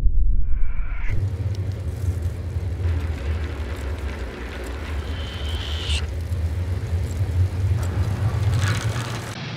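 Steady low rumble of a moving vehicle with road and wind noise, changing in texture about a second in. A brief rising whine sounds about five seconds in.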